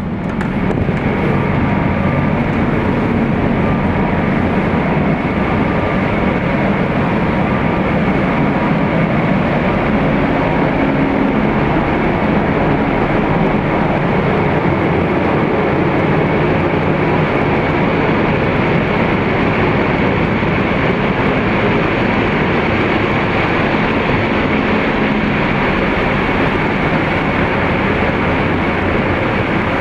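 Steady, loud mechanical drone and rush of a car ferry's engines and ventilation, heard from the outer promenade deck. It swells just after the start as a door opens onto the deck, then holds steady with a faint hum running through it.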